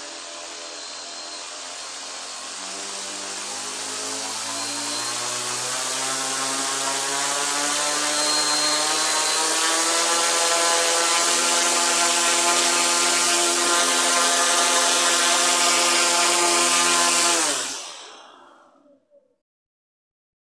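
1000KV brushless motor spinning a 10-inch propeller under radio throttle control: a whine with propeller rush that climbs slowly in pitch and loudness over about eight seconds as the throttle is opened, holds steady, then winds down quickly near the end as the throttle is cut.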